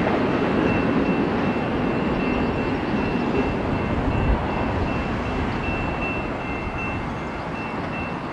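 The last double-stack intermodal well cars of a freight train rolling away on jointed track, a dense rumble that slowly fades. A faint pulsing high tone runs under it and stops near the end.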